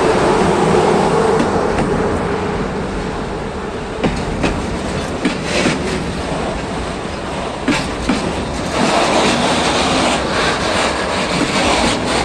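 Train rolling past, a steady loud rumble with wheels clacking over rail joints at irregular intervals, getting brighter and louder in the second half.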